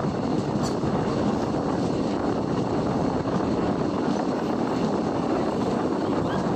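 Steady running noise of a passenger train coach in motion, heard at its open door: wheels rolling on the rails and rushing wind.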